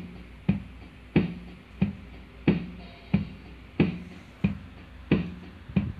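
NUX MG100 multi-effects unit's built-in drum machine playing a simple steady beat, about one hit every two-thirds of a second, alternating a deeper ringing drum with a shorter sharper one.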